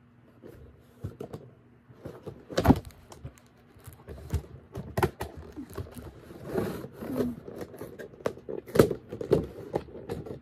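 A doll's cardboard display box with a clear plastic front being handled and opened: irregular rustling and crinkling with scattered knocks, the sharpest about two and a half seconds in and again near the end.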